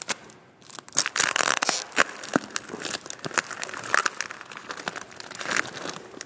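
Tape being ripped and peeled off a motorcycle battery and crumpled, a run of irregular crackling rips and rustles.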